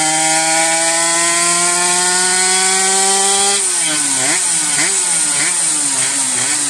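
Suzuki S 50cc two-stroke with a rotary-valve intake and billet cylinder running at high revs under load on a dyno, its pitch climbing slowly through a full-throttle pull. A little past halfway the revs drop, and the engine is then blipped up and down several times, about twice a second.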